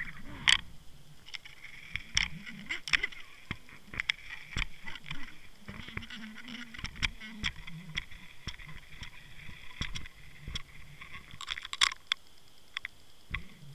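Underwater sound picked up by a submerged camera: irregular sharp clicks and ticks, bunched near the start, in the middle and about twelve seconds in, over a faint low hum.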